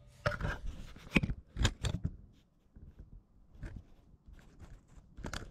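Irregular clicks and knocks as the camera is handled and repositioned, several close together in the first two seconds, then fainter and sparser.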